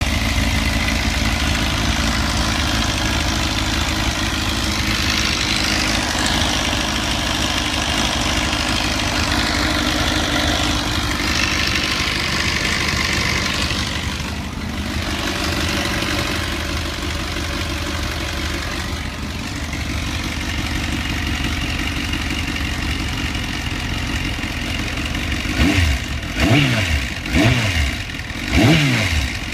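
2004–05 Kawasaki ZX-10R's inline-four engine running steadily at idle, then revved in several quick throttle blips near the end. The owner hears a strange noise in this engine.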